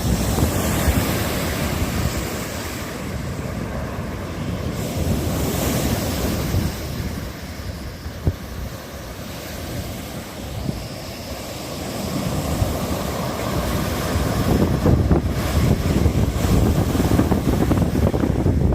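Ocean surf breaking and washing ashore in the rough swell ahead of a typhoon, a continuous rumble that swells and eases and grows louder near the end. Wind buffets the microphone throughout.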